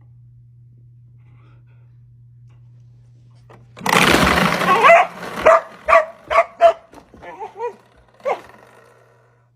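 A dog barking over a faint steady low hum: a loud rough outburst about four seconds in, then a quick run of short, pitched barks, trailing off into a few softer calls.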